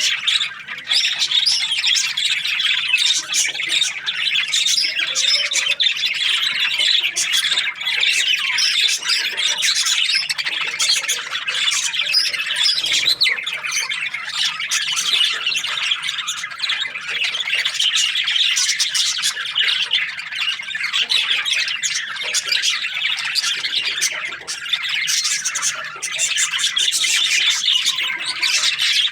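Budgerigars chirping continuously, many calls overlapping at once.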